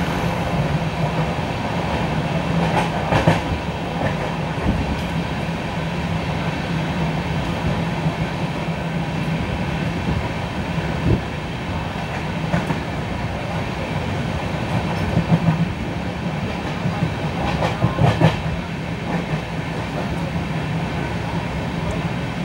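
LHB passenger coaches of an express train running along the track at speed: a steady rumble of wheels on rail. Short bursts of clacking come a few seconds in and twice in the second half, as the wheels cross rail joints or points.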